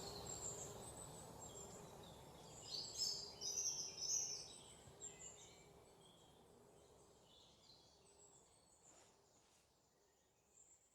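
Faint bird chirps over low background noise, clustered a few seconds in, with the noise fading away toward the end.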